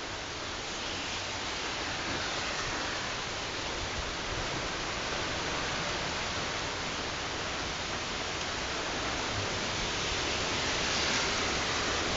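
Storm wind driving heavy rain, a steady rushing hiss that swells slightly toward the end.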